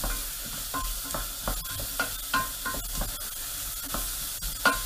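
Diced onion and garlic sweating in rendered bacon fat in a stainless steel pot, sizzling steadily while a wooden spoon stirs them, with repeated light scrapes and knocks of the spoon against the pot.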